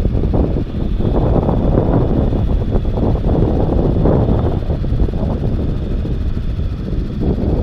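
Wind buffeting the action camera's microphone on open water, a steady low rumble with gusty surges.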